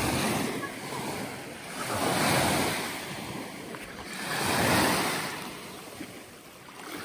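Small lake waves washing onto the shore, swelling and fading about every two and a half seconds, with some wind on the microphone.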